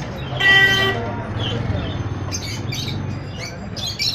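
Pet white rat squealing in a wire cage: one loud, clear squeal about half a second in, then a quick series of short, sharp squeaks in the second half.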